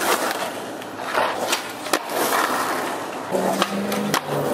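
Skateboard wheels rolling over asphalt in a steady rumble, with several sharp clacks of the board. A low humming tone that steps in pitch comes in over the last second.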